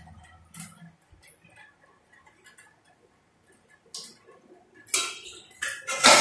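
Faint light ticks and small clicks, then louder rustling and scraping near the end as the recording phone is handled and rubs against cloth.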